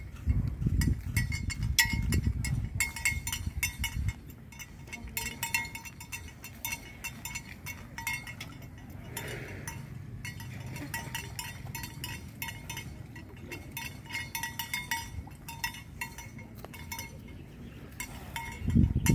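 Small metal bells clinking irregularly, many sharp ringing clinks. A low rumble under them for the first few seconds, and a brief low thud at the very end.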